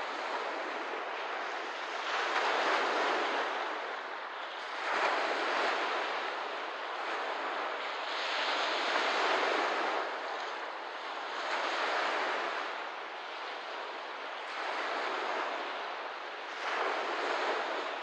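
Small waves washing onto a lakeshore, each wash swelling and fading about every three seconds.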